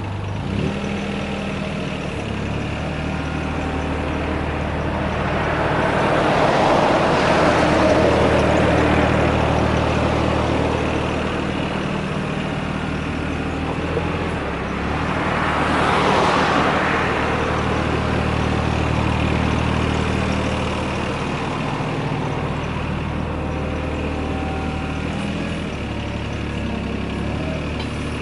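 Yanmar VIO20-1 mini excavator's diesel engine running steadily. It grows louder twice for a few seconds, about six seconds in and again around fifteen seconds in, as the machine is put to work.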